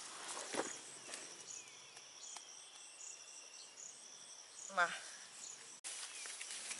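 Crickets or similar insects chirping in a steady, even high-pitched pulse in grassland, fairly quiet. A single short voice-like call cuts in just before five seconds.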